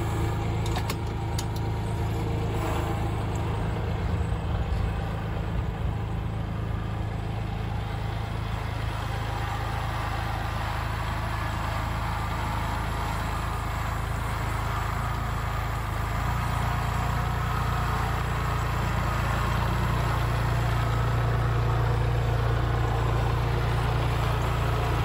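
Kubota L3901 compact tractor's three-cylinder diesel engine running steadily while the tractor moves the log splitter on its receiver hitch. It grows louder in the last third, and a few light clicks or rattles come in the first couple of seconds.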